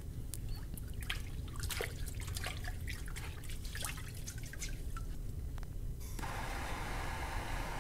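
Water dripping and splashing as a wet towel is squeezed and wrung out over a bucket of water. About six seconds in, the steady hiss of a lit handheld gas torch takes over.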